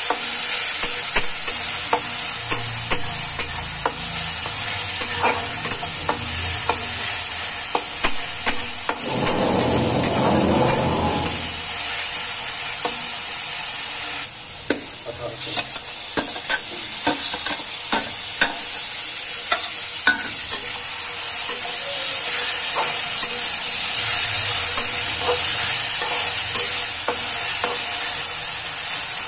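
Chopped onion, green chillies and ginger-garlic frying in hot oil in a wok: a steady sizzle, with a spatula scraping and clicking against the pan as the mixture is stirred.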